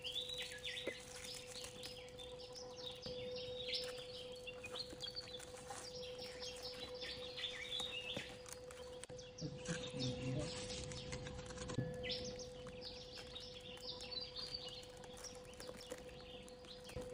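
Small birds chirping in quick repeated bursts over a faint steady hum.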